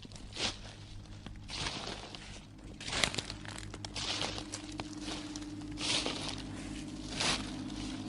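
Horror sound-effect track: a low steady drone with held tones, a new tone swelling in about three seconds in, broken every second or two by short hissing, scraping swells of noise.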